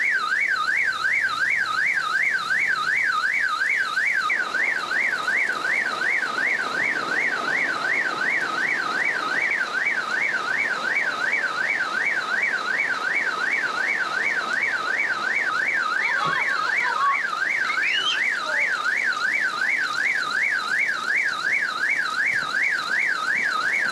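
Car alarm siren warbling rapidly up and down, about two to three sweeps a second, over the steady hiss of heavy rain; it cuts off suddenly near the end.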